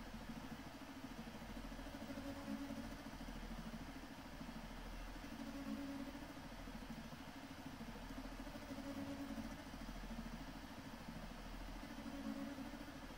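Stepper motors of a Sphere-O-Bot egg plotter humming and whining as they turn the egg and swing the pen arm while drawing, the pitch shifting up and down every second or two as the moves change.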